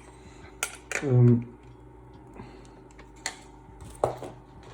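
Sharp metal clinks and knocks of a wrench and hand tools being handled, a few separate strikes, with a short vocal sound about a second in.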